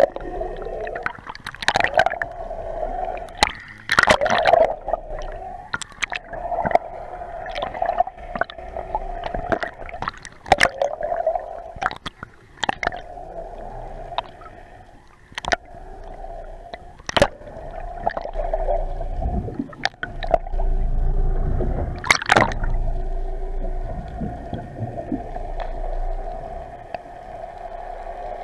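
Water gurgling and rushing around an action camera held underwater, with a steady hum throughout. Sharp knocks come every couple of seconds, and a low rumble swells in the second half.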